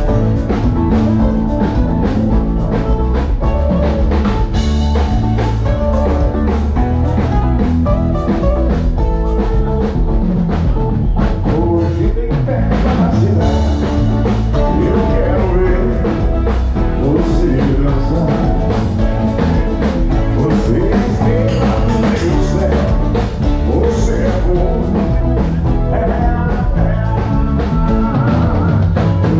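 A live band playing a song together at a soundcheck, with acoustic guitars, keyboard, electric bass and drum kit.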